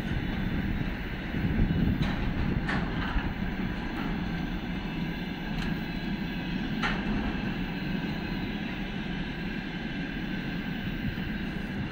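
Container flatcars of a long freight train rolling past: a steady rumble of steel wheels on the rails, with a few sharp clicks as wheels cross rail joints.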